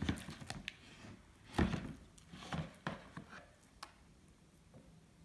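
Small batch of sticky glitter-glue slime being squished and pulled apart by hand: a few irregular wet clicks and pops, the loudest about one and a half seconds in.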